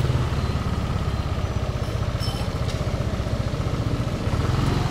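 Small motorbike engine running steadily at low revs, a fast even pulsing hum.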